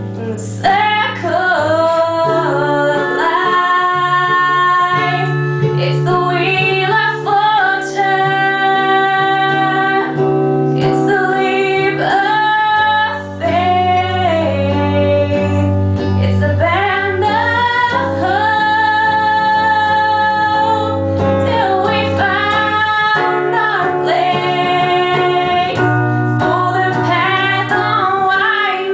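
A woman singing a slow melody with long held notes, accompanied by electric guitar, performed live.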